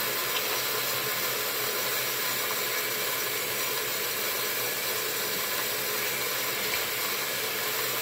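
Sink tap running steadily, water pouring into the basin and down the drain.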